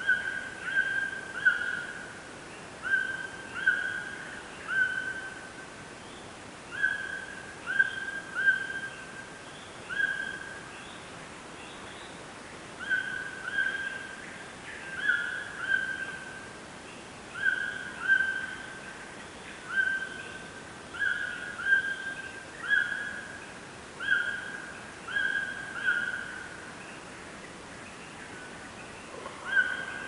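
Clear whistled notes at one high pitch, short and in groups of two or three, repeating every second or two with a few longer pauses.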